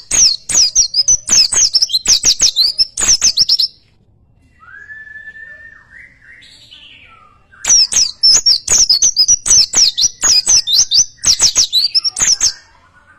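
A bird singing: two bouts of rapid, sharp repeated notes, about four or five a second. In the pause between the bouts there is a softer, lower whistled note.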